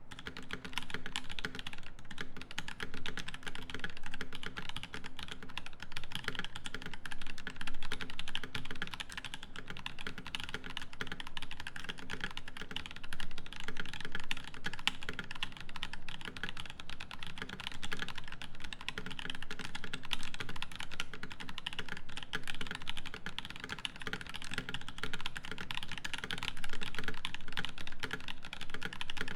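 Steady, fast typing on a custom mechanical keyboard with a brass plate and Boba U4T 62g tactile switches lubed with Tribosys 3204 under GMK keycaps: a dense, continuous run of keystroke clacks, with a few louder flurries.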